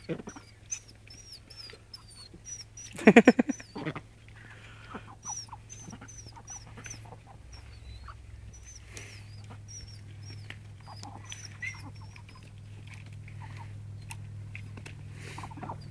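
A Jack Russell terrier and a flock of white domestic ducks feeding together on scattered duck feed: faint pecking and eating clicks, with short high chirps throughout and one loud call about three seconds in.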